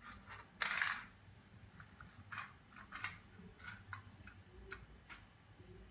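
Scattered light clicks and scratches, irregularly spaced, from a cat pawing and nosing at toys on a tiled floor, with one louder rustle just under a second in.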